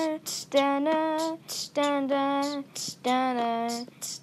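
A female voice singing unaccompanied: a slow melody of held notes, each about half a second to a second long, with short breaks between them.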